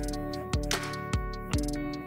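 Background instrumental music: plucked string notes that ring on, a new note struck every half second or so.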